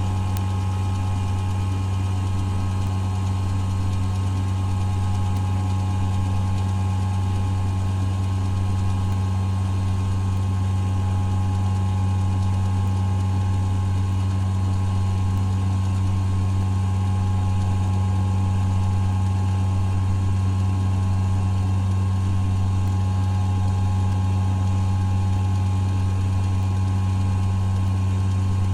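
A motor running steadily at a constant speed, a low drone with a few higher steady tones, unchanging in pitch and level.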